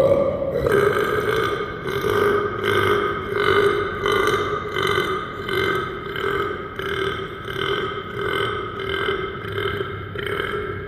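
A long, drawn-out human belch that starts abruptly and holds a steady pitch, swelling and fading about one and a half times a second, echoing in the space.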